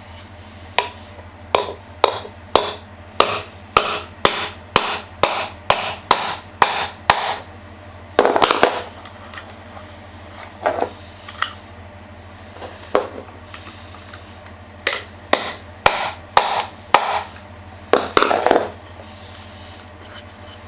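Repeated hammer blows, about two a second for the first seven seconds, then a short rasping burst and further blows in small groups. The hammering is the kind used to drive wheel bearings in or out of the Xiaomi M365's hub motor during bearing replacement.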